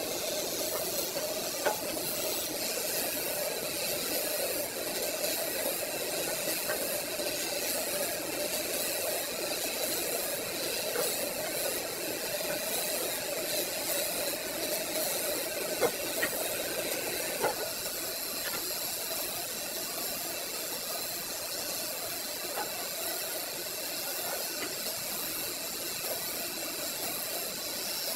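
Large belt-driven band saw running steadily, a constant hum with a high hiss, and a few sharp clicks along the way.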